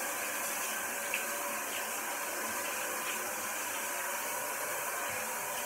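Shower water running steadily, a continuous even hiss as a large dog is rinsed in a shower stall.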